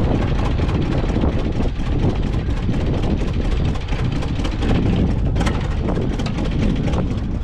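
A vehicle engine running steadily, with a fast, even pulse of firing strokes.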